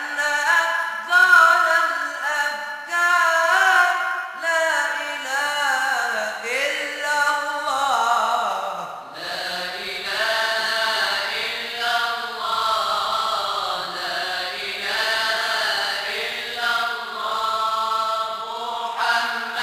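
Moroccan madih nabawi, devotional Sufi chanting: an ornamented vocal line that winds up and down, then from about nine seconds in a fuller, steadier chant of several voices.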